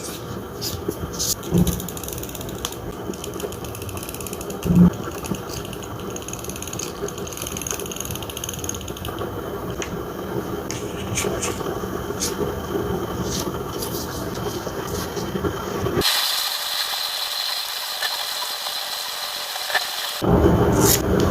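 Close-up handcraft sounds of paper and collage materials being handled: scattered small clicks and rustles over a steady hiss, with two louder knocks in the first few seconds and a stretch of thinner, brighter hiss near the end.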